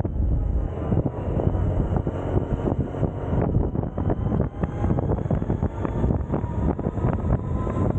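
Suzuki Burgman 650 maxi-scooter's parallel-twin engine running steadily at low road speed, with wind buffeting the microphone.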